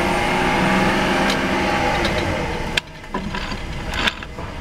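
A steady mechanical hum with several pitched lines cuts off abruptly nearly three seconds in. After it come a few light metallic clicks as the planetary gear set is pushed into place in an E4OD automatic transmission case.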